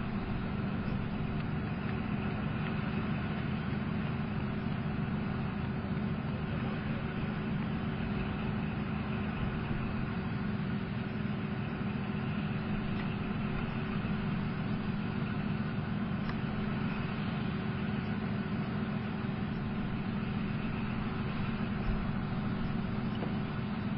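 Leopard 2A4 tank's V12 diesel engine running steadily, a low even drone with a constant hum over it.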